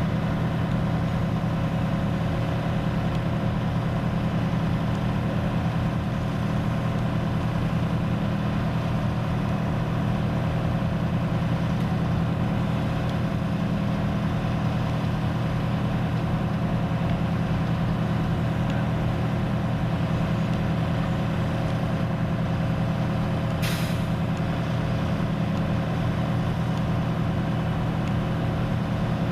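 Fire truck's diesel engine running steadily, a deep even rumble with a few steady higher tones over it. A short hiss cuts in once, about 24 seconds in.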